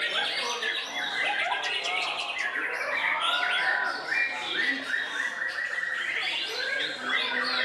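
White-rumped shama singing a fast, varied song of whistled sweeps and rapidly repeated short notes, with other songbirds singing over it at the same time.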